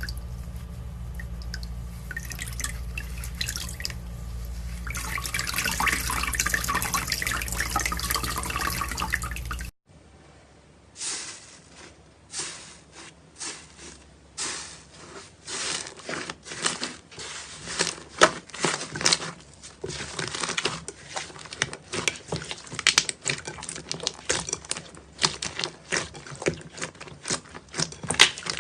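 Slime being squished and worked by hand: wet, sticky crackling over a low hum. After a cut about ten seconds in comes a run of sharp clicking pops that come faster toward the end.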